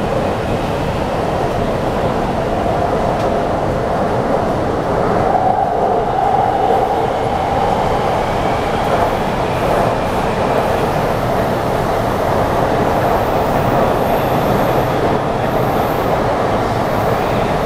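Taipei Metro C381 train running underground, heard from inside the car: a steady roar of wheels on rail with a wavering mid-pitched drone that swells slightly partway through.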